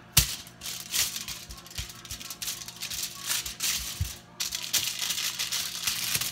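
Dry rattling, crinkling handling noise in two long stretches, split by a brief pause about four seconds in and opened by a sharp click.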